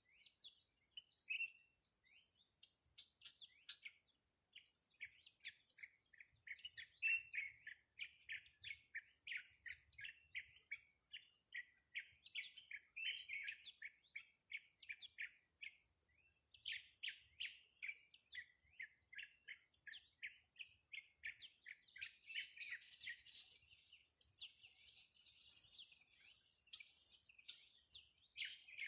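Songbirds chirping: a continuous run of short, quick chirps, several a second, with a denser chatter of higher-pitched calls joining in near the end.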